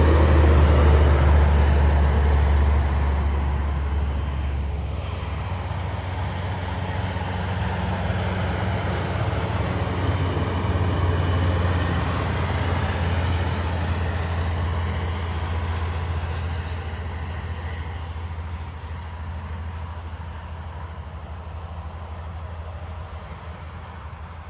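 Logging truck's diesel engine rumbling past, loud at first and then fading slowly as it moves away.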